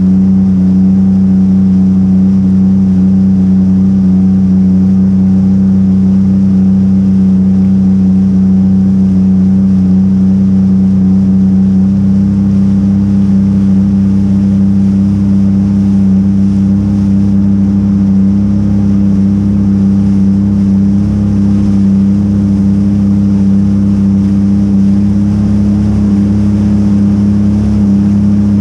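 Jet ski engine running steadily at speed, a loud constant drone that steps up slightly in pitch and gets fuller about twelve seconds in.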